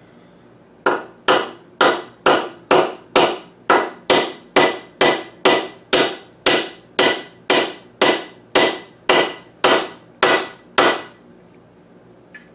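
Carpenter's claw hammer peening a brass rivet held up on a socket in a bench vise: a steady run of about two dozen blows, roughly two a second, each with a short ring. The rivet head is being flattened to fasten a new friction lining onto a brake shoe.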